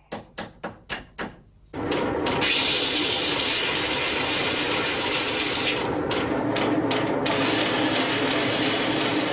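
About six sharp hammer taps splitting mother-of-pearl shell. Then, nearly two seconds in, a steady, loud wet grinding noise with a low hum begins: pieces of nacre being ground down on a water-fed grindstone.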